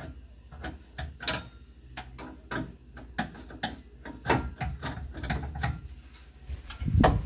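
Irregular clicks and clanks of hand tools and metal parts being handled, with a heavier knock about seven seconds in.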